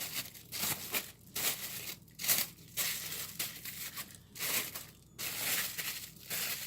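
Press'n Seal plastic wrap crinkling and rustling in irregular bursts as it is folded and pressed around a mold of homemade suet.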